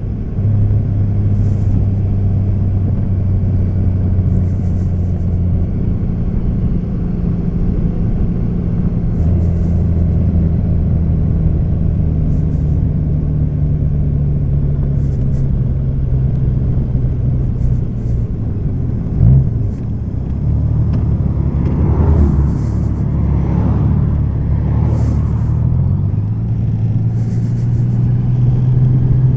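Honda Valkyrie's 1832cc flat-six engine running under way, heard over steady road noise. The engine note shifts in pitch a few times, dips with a brief knock about two-thirds of the way in, then climbs steadily near the end as the bike speeds up.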